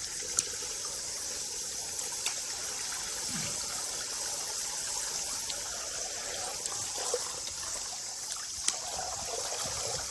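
Water running steadily with a hiss, with a few short sharp clicks.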